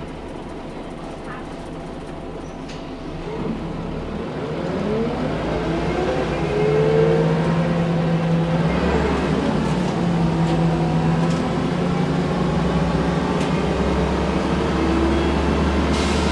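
Scania L94UB single-deck bus's diesel engine, heard from inside the saloon, pulling away and growing louder from about four seconds in, then running steadily under load. A whine rises and then falls in pitch as the bus gathers speed.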